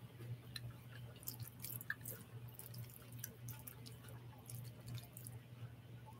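Faint chewing of a mouthful of stir-fry with the mouth closed: scattered soft, wet mouth clicks, over a steady low hum.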